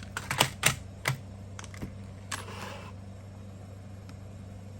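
Small hard objects being handled on a desk: a quick run of light clicks and taps in the first second, then a short scrape about two seconds in.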